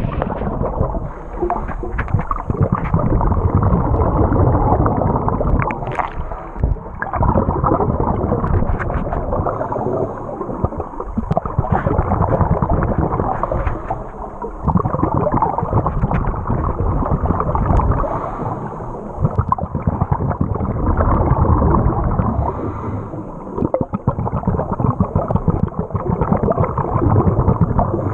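Muffled rushing and gurgling of moving water heard from underwater, swelling and easing every few seconds.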